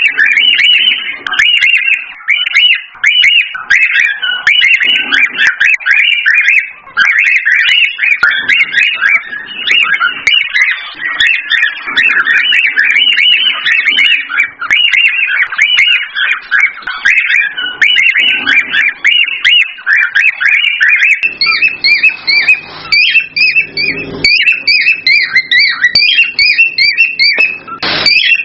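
Cockatiels chirping and warbling rapidly and continuously in excited, breeding-season song. From about two-thirds of the way in, a quick, evenly repeated chirp in two pitches joins in.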